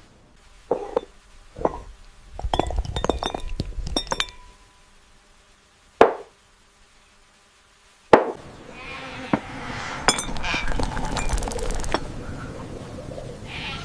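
Light clinks and taps of small hard objects, like glass or dishware: a few separate taps, a quick cluster of clinks, two single sharp hits, then a denser, continuous clattering texture in the second half.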